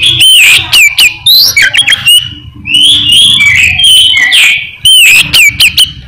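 Albino oriental magpie-robin (kacer) singing loudly: a rapid, varied run of sharp whistled notes and slurred gliding phrases, with brief pauses about two and a half seconds and about five seconds in.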